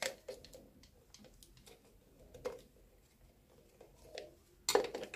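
Faint clicks and taps of plastic toilet flush-valve parts being handled while a new silicone seal is fitted, with a louder burst of plastic clatter near the end.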